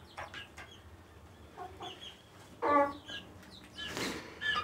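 Desi chickens clucking in short, scattered calls, with one louder call a little past halfway through.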